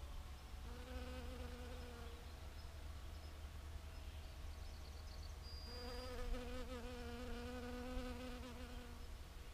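Honeybee buzzing in flight around mustard flowers: a short buzz of about a second and a half near the start, then a longer steady buzz of about three seconds from just past the middle.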